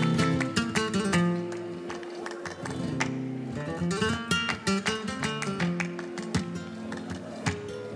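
Flamenco acoustic guitar playing a run of plucked notes and strums between sung verses, accompanied by hand clapping (palmas).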